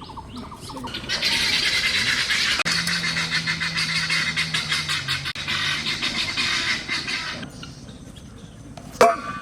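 Birds chirping in a dense, busy chatter for about six seconds, then one short loud call near the end.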